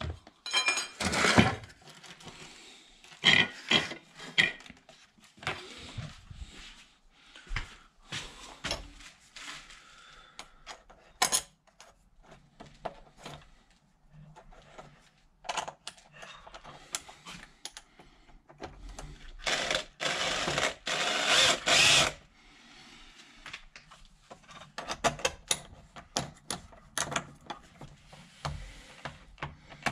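Handling clicks and knocks as a metal pipe clamp is fitted, and a cordless drill-driver running for about three seconds past the middle as the clamp is fastened.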